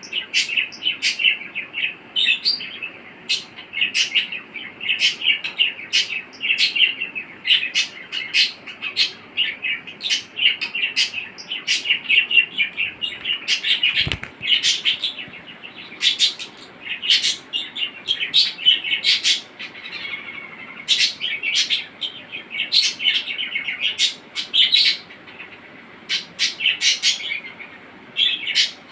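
Budgerigar warbling and chattering without a break, a dense run of chirps mixed with many short sharp clicks. A single dull thump about halfway through.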